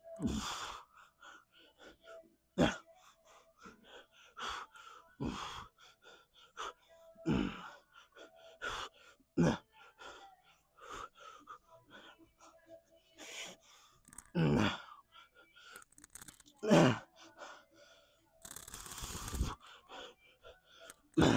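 A man's hard, gasping breaths and strained exhales while straining through a heavy set of reps on a weight-stack machine. They come one at a time every two to three seconds, with a longer breathy exhale near the end.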